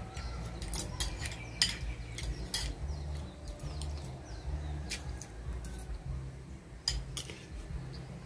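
Cutlery clinking and scraping against plates while eating: a few sharp, scattered clinks, the loudest about one and a half seconds in.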